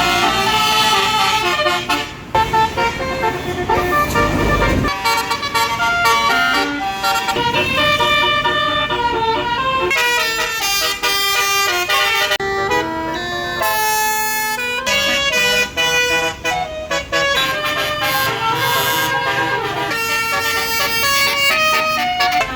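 Basuri, the multi-tone musical air horn of Indonesian tour buses, playing tunes in quick stepping notes, with a second-long rush of noise about four seconds in.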